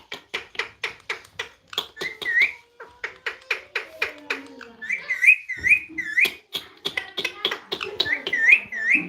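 Parrot making a rapid run of sharp clicks mixed with short whistled chirps that come in quick clusters of two and three, with one lower, falling note about four seconds in.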